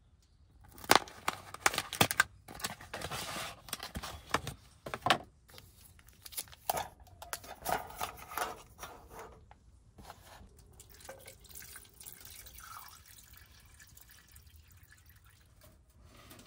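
Water splashing and dripping, with sharp clinks and knocks in the first ten seconds, then fainter handling sounds.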